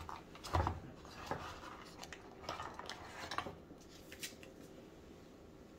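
Clicks and knocks of hard plastic as a GoPro Hero 10 camera is lifted out of its fitted hard case and handled. There is a scattering of taps, the loudest about half a second in, and they die away after about four seconds.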